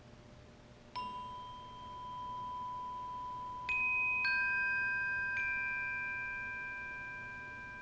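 Glockenspiel played with mallets: sparse single notes, the first about a second in and two higher ones a few seconds later, each left to ring on and slowly fade.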